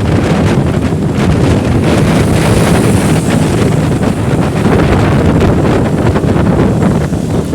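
Wind buffeting the microphone of a moving motorcycle, a steady loud rush over the bike's engine and road noise.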